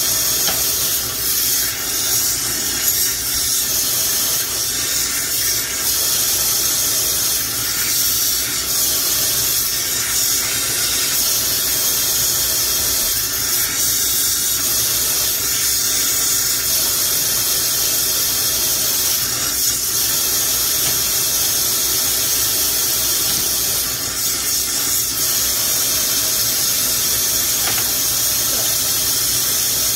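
Glassblowing bench torch burning with a steady, even hiss as glass is worked in its flame.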